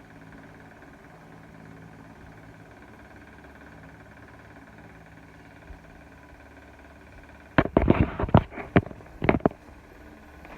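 A faint steady hum, then a quick cluster of sharp clicks and knocks about seven and a half seconds in, lasting about two seconds.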